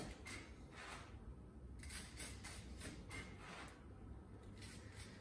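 Knife sawing through a crisp pan-grilled sandwich on a cutting board: faint rasping strokes, several a second, with a couple of short pauses.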